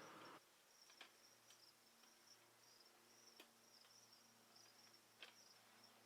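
Near silence: faint, high-pitched cricket chirping repeating steadily, with a few soft clicks.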